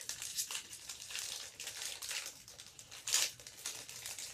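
Crinkling and rustling of a hockey card pack wrapper being handled, with a louder crackle about three seconds in.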